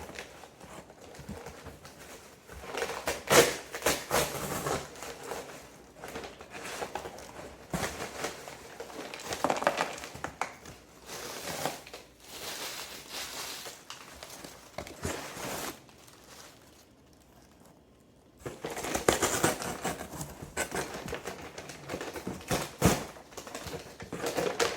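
Packaging rustling and crinkling in irregular bursts as a wrapped orchid plant is worked free of its shipping box, with a short lull about two-thirds of the way through.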